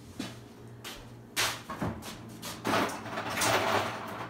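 Household movement noises: a single light knock about a second in, then short bursts of rustling and scraping, the longest near the end.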